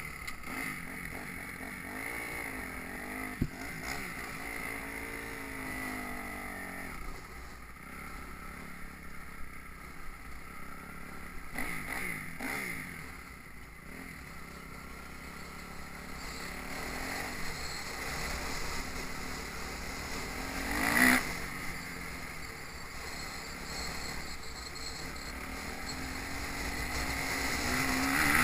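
Kawasaki KX250F single-cylinder four-stroke motocross bike engine being ridden, its revs rising and falling as the rider works the throttle.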